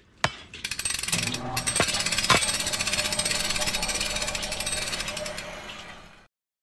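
A power tool hammering in rapid, even strokes for about five seconds, fading out near the end, after a sharp knock at the start.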